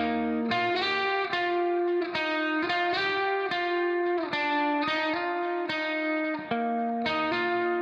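Background instrumental music: a plucked-string melody, notes starting sharply and changing every half second or so.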